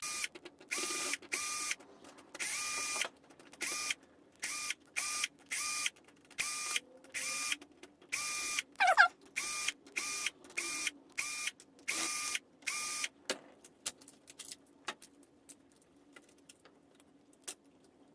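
A cordless drill or screwdriver run in quick on-off bursts, around twenty short whines in a row, backing out screws from a plastic electronic toy. It is followed by light clicks and taps of small parts being handled.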